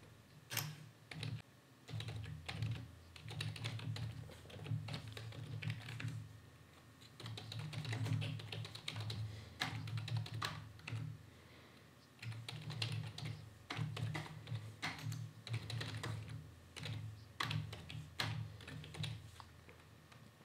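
Computer keyboard typing in irregular runs of quick keystrokes, with a couple of brief pauses.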